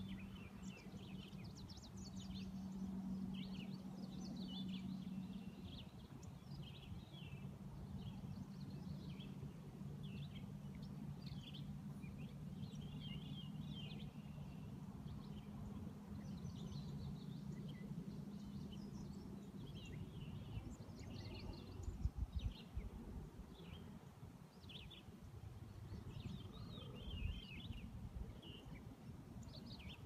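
Small birds chirping, with many short high chirps and trills throughout, over water lapping gently at a pond shore. A faint steady low hum runs under the first two-thirds and stops about twenty seconds in, and a couple of low wind thumps hit the microphone near the end.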